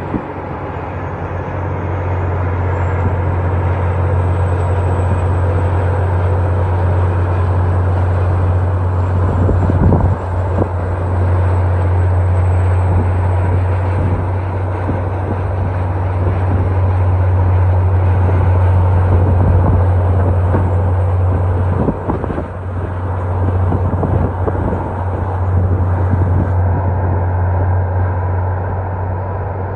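A vehicle driving on a snowy road: a steady low engine and road drone with rushing road noise and a few knocks, one about ten seconds in and one about twenty-two seconds in.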